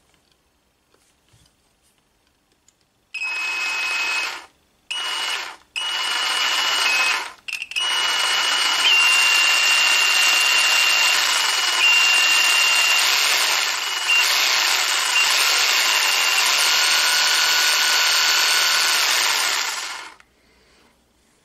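Power Action CJS-20 cordless jigsaw running with no load, the blade cutting only air. About three seconds in it is triggered in three short bursts, then runs steadily for about twelve seconds before stopping. A high motor whine runs through it and shifts slightly in pitch.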